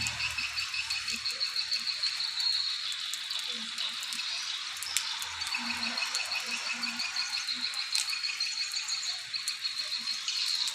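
Swiftlets chirping and twittering continuously, a dense rapid pulsing with scattered sharp clicks: the birds responding to a swiftlet lure call.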